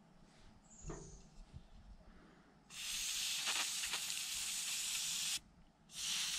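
Aerosol carb and choke cleaner sprayed through its straw nozzle onto Briggs & Stratton carburetor parts to clean them. It gives a long hissing burst starting partway in, a short pause, then a second burst near the end.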